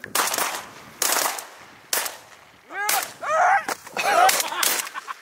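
Shotgun shots fired at geese passing overhead, several sharp reports about a second apart, with geese honking between the later shots.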